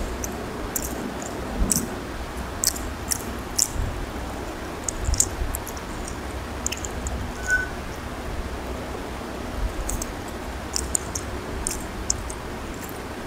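Eating chicken curry and rice by hand from a plate: scattered small wet clicks and smacks of fingers and mouth, over a steady low hum.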